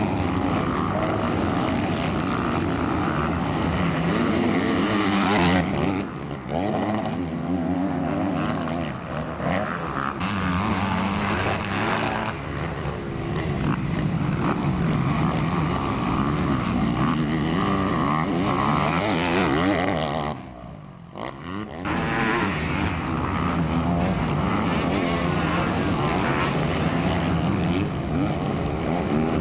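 Several motocross bike engines revving as they race, their pitch rising and falling over and over. The sound dips briefly about two-thirds of the way through.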